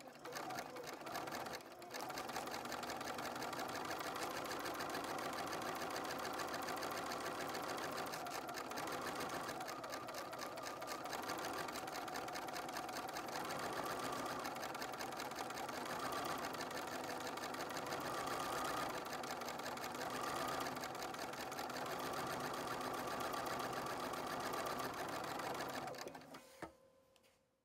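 Bernina 590 sewing machine running fast and steadily, free-motion stitching metallic thread through fabric under a spring darning foot. It pauses briefly about two seconds in and stops near the end.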